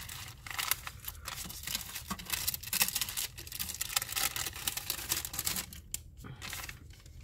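Paper and plastic craft packets rustling and crinkling as they are handled and gathered up, with many small ticks and taps in quick, uneven succession.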